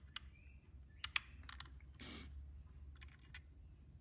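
Faint, scattered small clicks and taps, with a short scrape about two seconds in, as a small screwdriver and fingers work at the plastic underside of an HO-scale model locomotive.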